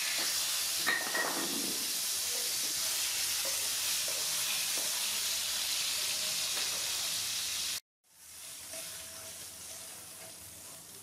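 Whole climbing perch fish frying in hot oil in a pan: a steady sizzle. It cuts off suddenly about eight seconds in and comes back quieter.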